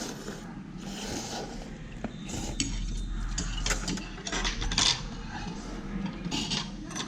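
Tableware clinking and scraping during a noodle meal: short scattered clicks and scrapes of utensils against bowls over a steady restaurant background hum.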